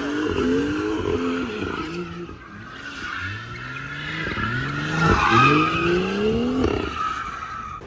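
BMW M2's turbocharged straight-six revving up and down as the car drifts, with the tyres squealing and skidding on the tarmac. The revs dip about two seconds in, then climb twice in the second half and fall back.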